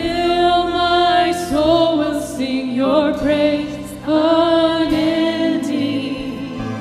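Worship team singing a slow song over instrumental accompaniment, holding long notes with vibrato; new phrases begin about one and a half and four seconds in.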